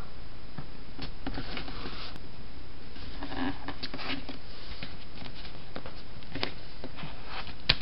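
Faint rustling and light taps of paper strips being handled and pressed down onto cardstock, with a few small clicks, over a steady background hiss.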